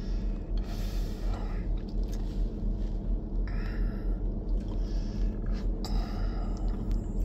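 A man's breathing in a car cabin, several audible breaths and sighs a second or so apart, over a steady low hum.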